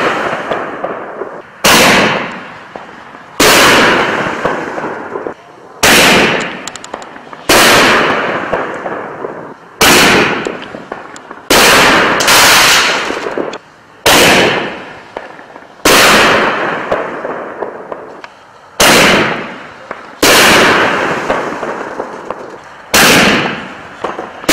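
Mini canister artillery shells from a firework kit launching and bursting one after another. About thirteen sharp bangs come at intervals of a second or two, each trailing off before the next.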